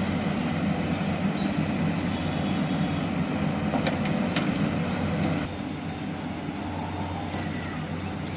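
Diesel engine of a JCB 3DX backhoe loader running steadily under work, with a few light clanks near the middle; it drops a little in level about five and a half seconds in.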